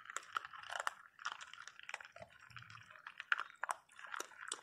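Several small dogs crunching dry kibble from a shared bowl: a dense, irregular run of crisp crunches and clicks of chewing.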